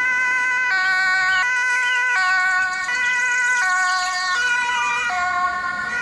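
Ambulance two-tone siren, alternating between a high and a low pitch about every three-quarters of a second.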